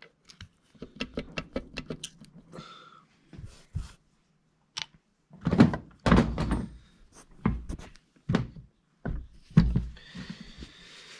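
Hand tools and loose metal engine parts being handled on a workbench: scattered clicks and light clinks, with several louder dull thuds.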